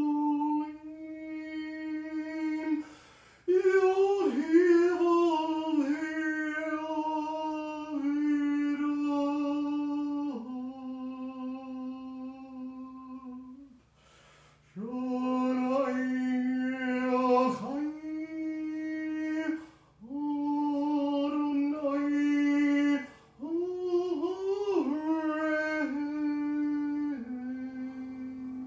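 A man intoning long, held syllables on a nearly steady pitch, each lasting several seconds with short breaths between, the vowel shifting within some of them: ritual chanting of sacred names.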